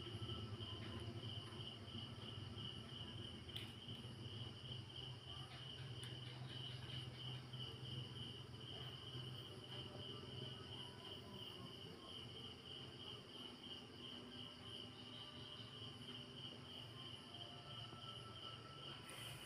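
A cricket chirping steadily, a faint high pulsing trill that runs on without a break, over a low background hum.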